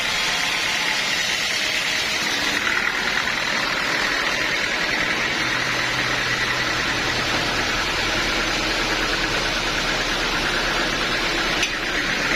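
Sawmill machinery running steadily, a constant mechanical noise with a hiss, joined by a low hum about halfway through.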